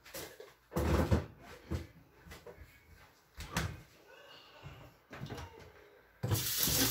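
A few scattered knocks and clunks of things being handled, then about six seconds in a kitchen faucet is turned on and water runs into a stainless steel sink.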